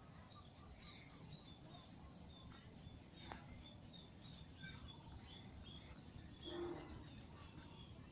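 Faint rural background of small birds chirping, many short high chirps throughout, over a low rumble. About six and a half seconds in there is one brief, louder low-pitched call.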